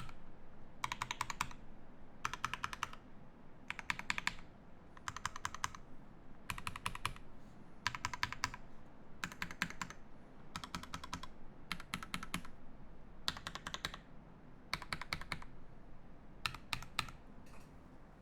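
Mechanical keyboard with lubed Alpaca V2 linear switches in an acrylic case and plate, with GMK keycaps, being typed on in short bursts of rapid keystrokes, about one burst every second and a half. The last burst, a few seconds before the end, is short.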